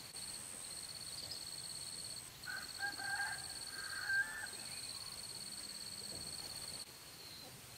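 An insect, likely a cicada or cricket, buzzing steadily at a high pitch and stopping near the end, with a bird calling a few short times in the middle.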